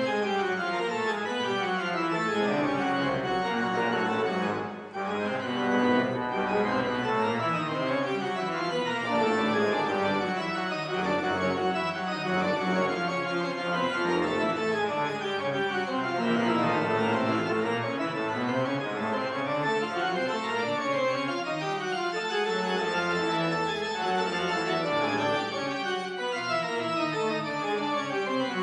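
Pipe organ playing a dense, many-voiced passage with quickly moving lines, broken by one short rest about five seconds in.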